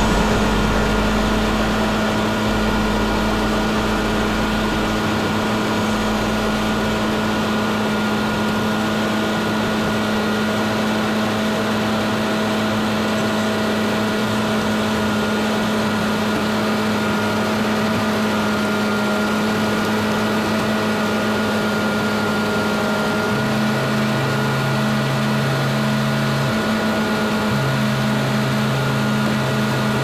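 Road-paving machinery's engine running steadily at a constant speed: an even mechanical drone with a steady hum and no revving.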